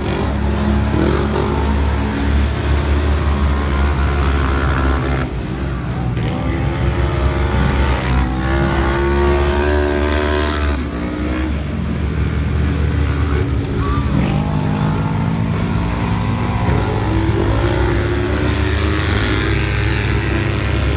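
Several Polaris RZR side-by-side UTVs racing, their engines revving up and falling back again and again as they speed up and slow for the turns, several engine pitches overlapping over a steady low rumble.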